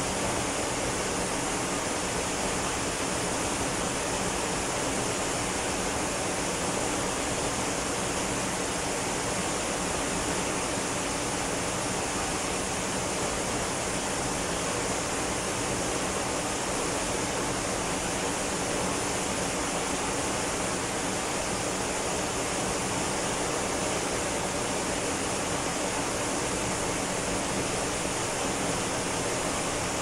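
Ōko Falls, a tall waterfall on Yakushima, plunging down a rock face into its pool: a steady, unbroken rush of falling water that spreads from low rumble to high hiss and never changes in level.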